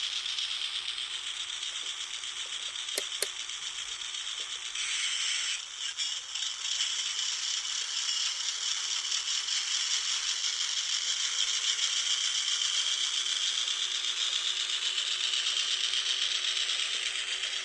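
Model Taiwan Railway R100 diesel locomotive running, its drive gears and wheels giving a steady fast rattle. There are two sharp clicks about three seconds in, and the rattle changes character about five seconds in.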